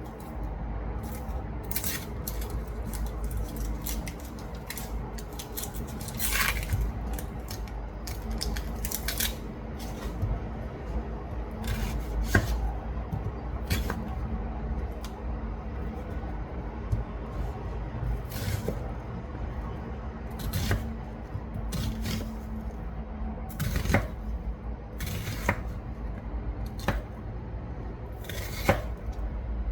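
Irregular clicks and knocks of kitchen work, utensils and dishes being handled, some ringing briefly, over a steady low hum.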